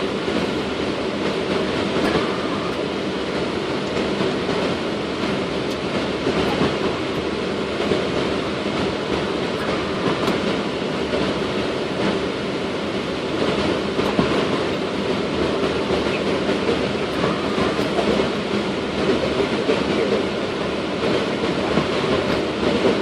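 Steady rumbling cockpit noise of a Boeing 777 taxiing after landing: engines at idle, airflow and the rolling of the aircraft.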